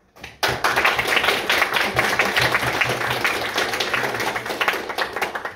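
A small audience clapping, starting about half a second in and stopping abruptly near the end.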